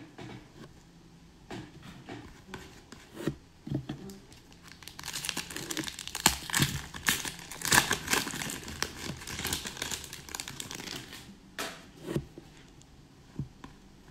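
Foil wrapper of an Upper Deck hockey card pack being torn open and crinkled, a dense crackling through the middle seconds. A few light clicks and taps of card handling come before and after it.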